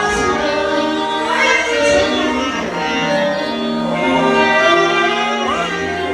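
Live worship music led by a saxophone playing long held notes, with slides between some of them, over a steady low accompaniment.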